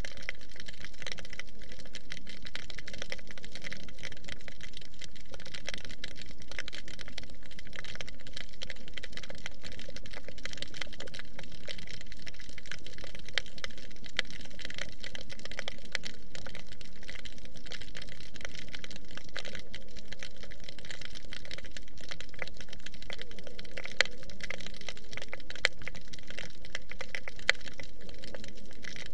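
Steady underwater crackling: a dense, unbroken patter of fine clicks, picked up by a camera submerged in its waterproof case, with a few sharper ticks here and there.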